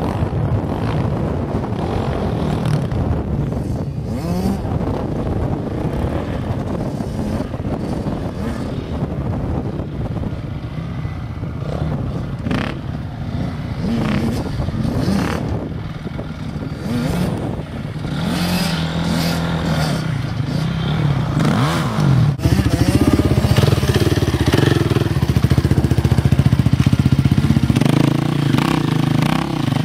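Several off-road dirt-bike engines running at low speed, with repeated blips of the throttle that make the engine note climb and fall. It gets louder about two-thirds of the way through as a bike comes closer.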